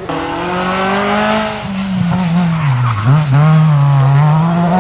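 Hatchback rally car's engine driving hard past: the revs fall to a low point about three seconds in as it slows, then climb again as it accelerates away.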